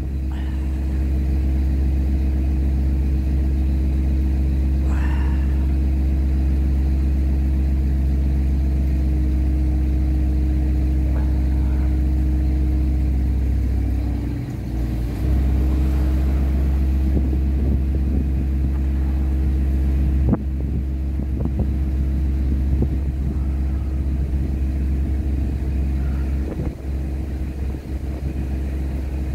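A motor running steadily: a deep drone with a few held tones, dipping briefly about halfway through.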